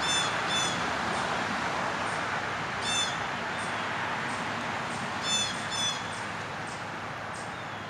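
A bird gives short, harsh calls over a steady rushing hiss: two at the start, one about three seconds in, and two more about five and a half seconds in.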